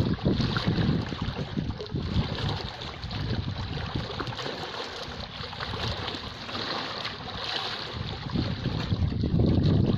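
Sea waves washing, with wind buffeting the microphone. The rumble is stronger at the start, eases in the middle and swells again near the end.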